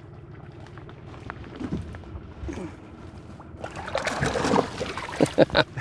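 Water splashing at the lake surface as a bass is let go from the hand and kicks away, starting about three and a half seconds in after a low steady background.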